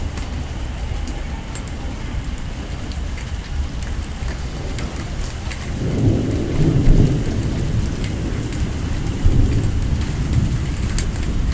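Thunderstorm: heavy rain with sharp drop ticks, under a low rumble that swells louder about six seconds in and again around nine seconds.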